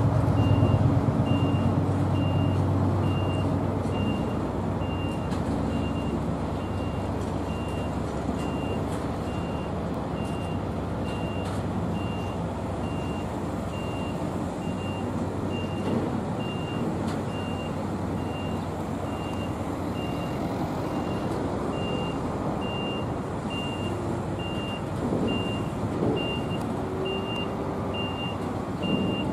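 Diesel freight locomotive engine running, its drone fading over the first few seconds into a steady rumble, under a high electronic warning beep that repeats just over once a second.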